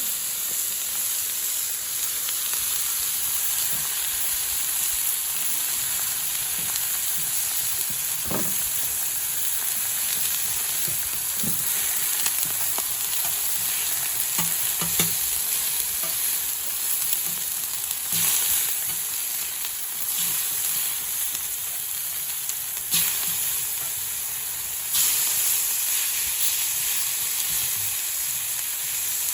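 Pork belly sizzling on a hot iron griddle: a steady frying hiss with a few short, sharp clicks and taps scattered through it.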